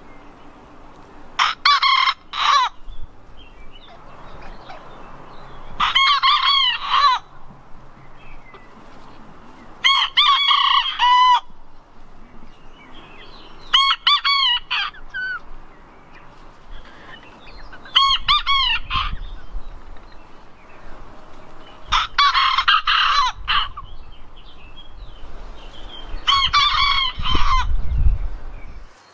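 Serama bantam roosters crowing: about seven short, high crows, one every four seconds or so, with quieter clucking between them.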